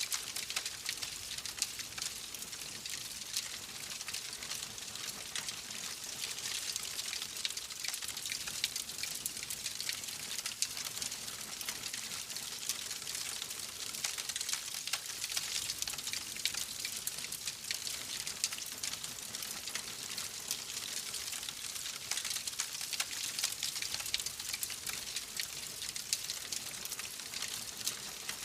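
Fire in a fireplace crackling steadily, with many small sharp pops over a constant hiss.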